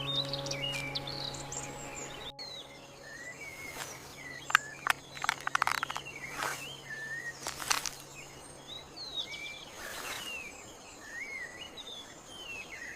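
Forest ambience: small birds chirping and whistling short phrases throughout, over a low held music chord that fades out a little after halfway. A burst of sharp clicks and crackles between about four and eight seconds in is the loudest part.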